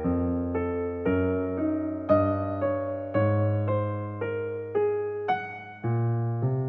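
Background music: electric piano playing a slow run of held chords, each note struck and left to fade.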